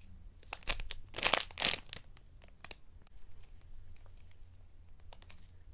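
Clear plastic packaging bag crinkling and rustling as a foam squishy toy is handled and slid out of it, loudest in a burst of rustles around one to two seconds in, then only faint scattered crackles.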